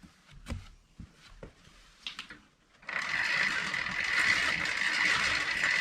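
A few light knocks, then about three seconds in a bicycle freewheel starts a steady, fast ratcheting buzz as the rear wheel spins.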